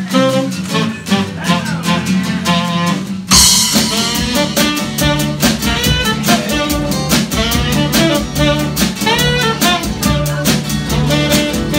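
Live band playing an instrumental: strummed acoustic guitars, then about three seconds in the drum kit and the rest of the band come in with a lead melody over a steady beat.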